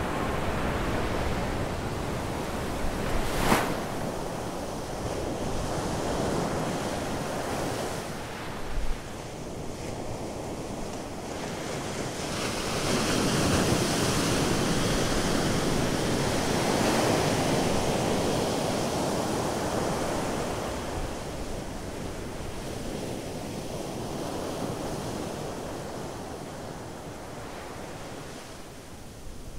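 Surf on a sandy beach: waves breaking and foam washing up the sand, a steady wash that swells for several seconds around the middle and fades toward the end. A brief sharp crack sounds a few seconds in.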